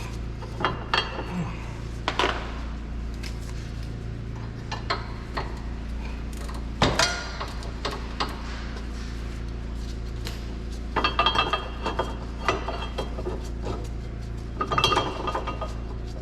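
Clinks and clicks of a wrench and a long steel brake caliper bracket bolt being unthreaded from the front spindle, over a steady low hum. There is a sharp knock about seven seconds in, and quick runs of metallic clinks a little past the middle and near the end.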